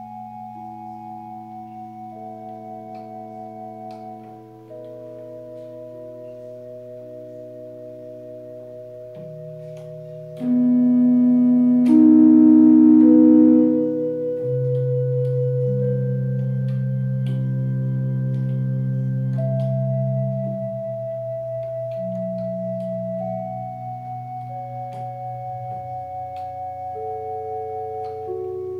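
A slow piece played on a portable electronic keyboard: held chords and a steady bass note under a simple melody, the notes sustained without fading. The playing gets louder about ten seconds in.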